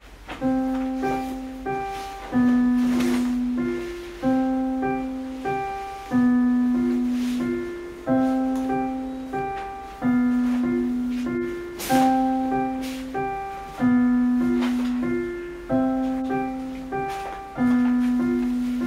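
Background piano music: a calm repeating pattern, with a new phrase struck about every two seconds and then fading.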